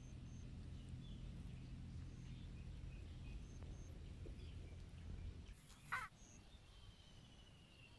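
Faint outdoor background: a low rumble that stops about five and a half seconds in, with faint, scattered bird calls. A short, sharp, harsh sound comes about six seconds in.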